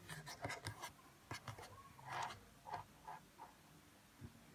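Faint, scattered soft taps, clicks and rustles of hands working play-doh on a tabletop.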